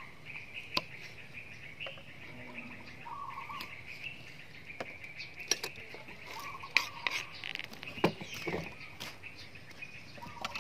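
Kitchen knife knocking on a wooden chopping board while slicing chillies: scattered sharp knocks, the loudest about two-thirds of the way through. Birds chirp repeatedly in the background.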